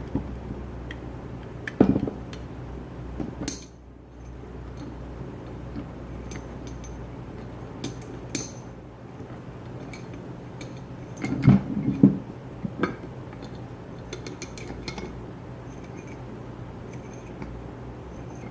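Metal parts of an old Columbian bench vise being handled during disassembly: scattered clinks and knocks, with louder clanks about two seconds in and again around eleven to twelve seconds in.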